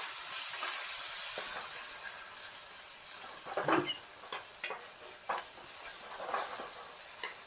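Onion-tomato masala sizzling in oil in a pan, the hiss easing after the first couple of seconds, with a spoon scraping and stirring it several times. The oil has begun to separate from the masala, the sign that it is fully fried.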